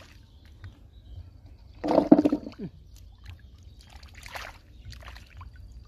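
Hands sloshing and splashing in shallow muddy water while groping through the mud for snails and clams. There is a louder splash about two seconds in, and a few smaller ones later.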